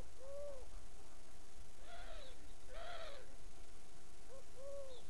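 A dove cooing: soft, arched hoo notes, a short note followed by a longer one near the start and again near the end, with two louder, fuller coos in between.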